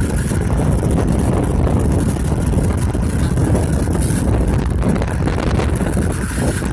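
A steady, rough low rumble of wind buffeting the microphone.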